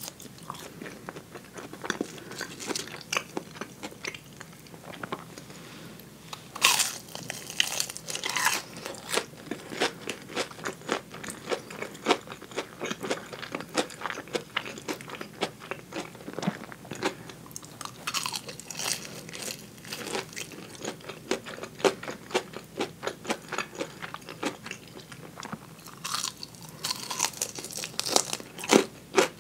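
Close-miked chewing and biting of fried food, soft potato wedges and crisp-battered tulip-cut fried chicken drumsticks, with wet mouth clicks throughout. Loud crunches come at several points, about seven seconds in, around eighteen seconds and near the end, the last as teeth bite into a chicken drumstick's fried coating.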